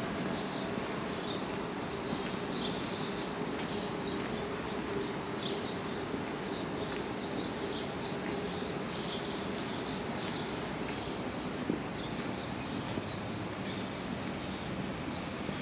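Small birds chirping again and again over a steady city background hum, with a low drone from distant traffic that fades out about halfway through.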